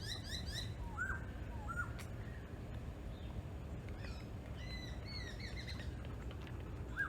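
Several wild birds calling. A quick run of chirps comes at the start, two short downward-slurred notes about a second in, and more chirping notes a little past the middle, all over a low steady background rumble.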